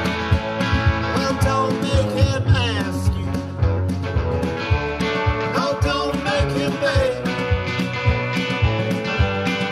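Live band playing an instrumental passage through a Meyer Ultra-X40 and 500-HP subwoofer PA: electric guitar, keyboard, upright bass and drums with a steady beat, with some notes bending in pitch. The recording's bottom end is slightly rolled off by a high-pass filter left on at the microphone.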